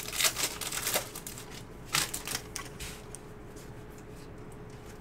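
A foil wrapper of a Topps Stadium Club baseball card pack is torn open with a crackling rip for about a second. A second brief rustle follows about two seconds in as the cards are pulled out, then there is quieter handling of the cards.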